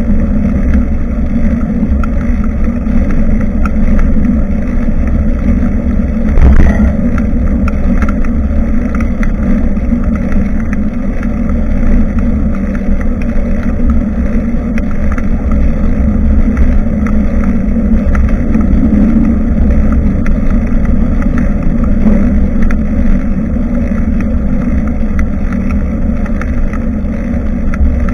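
Steady rumbling ride noise picked up by a bicycle-mounted action camera: wind buffeting the microphone and tyres running over the road. There is one sharp knock about six and a half seconds in.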